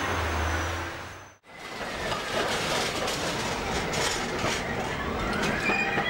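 Low running rumble inside an old Melbourne W-class tram, cut off sharply about a second and a half in. Then a W-class tram running along street track, wheels clicking on the rails, with a wheel squeal that rises in pitch near the end and holds.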